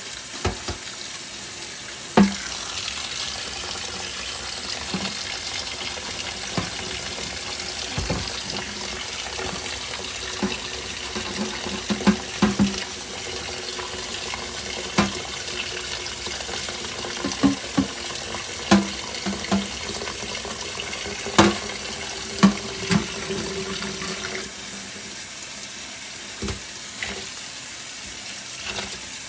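Kitchen faucet running steadily into a stainless steel sink while a pot lid is scrubbed under the stream with a sponge. Sharp clinks and knocks of the lid against the sink come every second or two, some ringing briefly.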